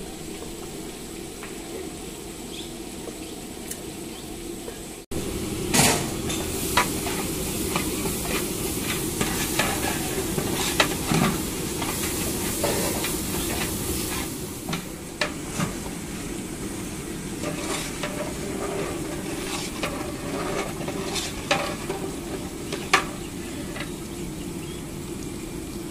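A long metal spatula stirring and scraping through a large aluminium pot of thick curry masala, which is sizzling as it fries. The blade knocks and scrapes against the pot irregularly throughout, and the sound gets louder about five seconds in.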